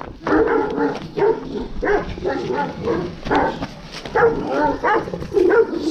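Kangal shepherd dogs barking and yelping in a rapid string of short calls, the noise of dogs squabbling among themselves.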